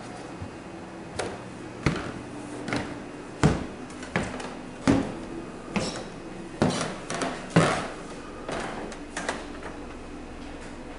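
Footsteps on a wooden floor: about a dozen uneven knocks roughly a second apart, fading out near the end, over a faint steady hum.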